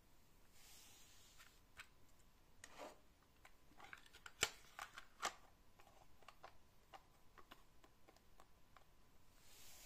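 Cassette tape being loaded into a Pioneer CT-939 cassette deck: a run of small plastic clicks and taps, the two loudest about four and a half and five seconds in.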